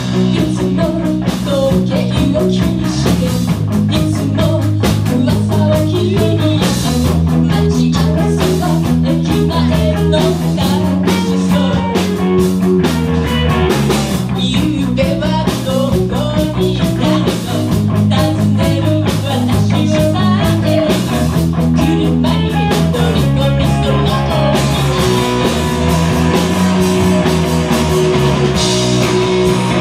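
Live rock band playing loud: distorted electric guitars over a driving drum kit, with the low notes changing every second or two and a lead singer on vocals.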